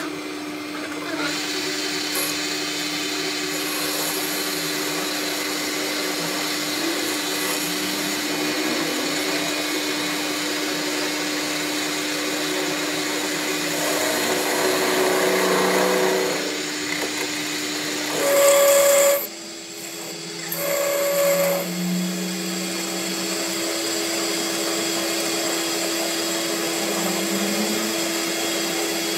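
Metal lathe running, with the cutting tool turning down a steel shaft: a steady machine hum with a hiss of cutting. About two-thirds of the way through, a short, louder, higher-pitched sound comes in, briefly drops away, then sounds again.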